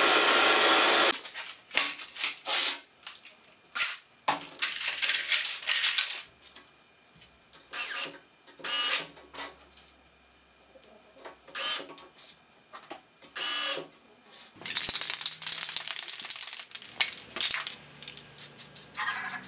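A gas torch's flame hissing, cut off about a second in. Then a cordless drill driving screws into a small wood block in short bursts, with clicks and rattles of screws being handled and a quick run of clicks near the end.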